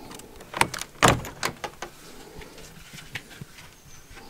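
A door being opened and handled: several sharp, irregular knocks and clicks, the loudest about a second in.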